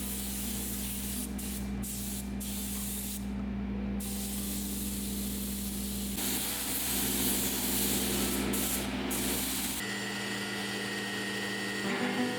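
Compressed-air spray gun hissing as primer is sprayed onto a car body, the trigger let off for short moments a few times, over a steady low hum.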